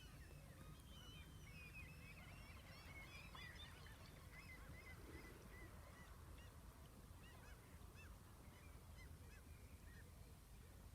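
Faint calls of a flock of birds: many short, overlapping calls that thin out toward the end, over a low steady rumble.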